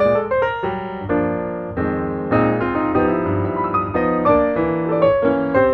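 Background piano music, a melody over chords with notes changing several times a second.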